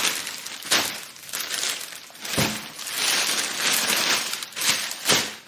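Packaging being opened and handled: a crinkling, rustling sound with a few sharp knocks, about a second in, near the middle and near the end.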